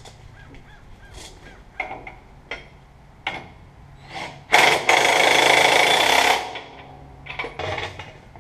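Impact wrench hammering for about two seconds as it runs down a nut on the truck's rear axle suspension, preceded by a few short knocks and clicks of tool and parts handling.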